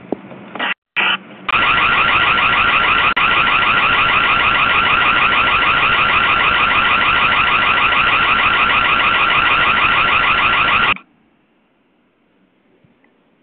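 Ring Floodlight Cam's built-in security siren sounding loudly: two short blips, then a high, fast-warbling alarm held for about nine seconds before it cuts off suddenly.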